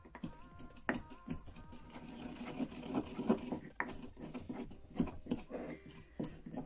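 Wooden pestle pounding and grinding anise seeds, moistened with alcohol, in a wooden mortar: irregular knocks with a rasping scrape between them.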